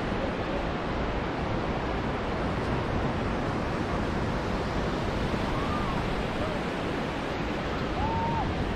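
Steady rush of surf breaking on a sandy beach, mixed with wind on the microphone.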